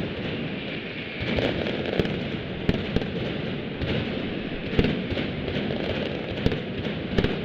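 Valencian mascletà: a dense, unbroken barrage of firecracker bangs, with sharper, louder reports standing out every second or so.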